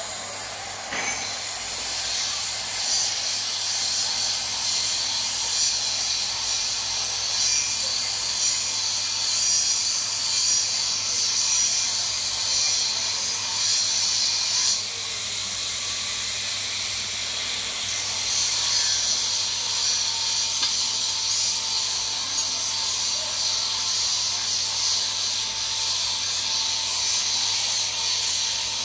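Electric welding arc burning on a steel pipe joint, a steady hiss that dips about halfway through and picks up again a few seconds later.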